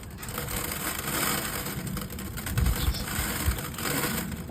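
Loose dry seeds for chicken feed rattling and rustling as they are handled, with a few dull bumps a little past the middle.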